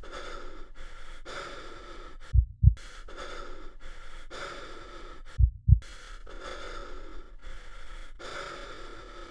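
Heavy, rapid breathing in short repeated hisses, cut twice by a deep double heartbeat thump, about three seconds apart: a dramatic heartbeat sound effect.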